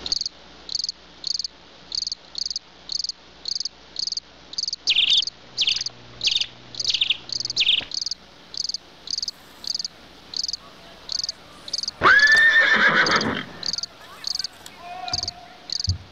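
Crickets chirping in an even rhythm, about a chirp and a half to two chirps a second, high-pitched. Around twelve seconds in, a louder animal call lasts about a second and a half.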